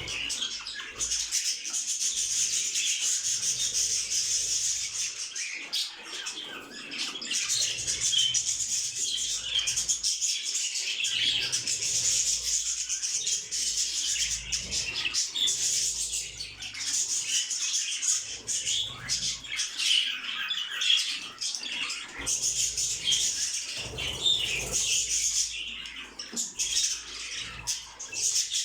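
Many caged ornamental birds chirping and chattering together in a dense, continuous high-pitched din.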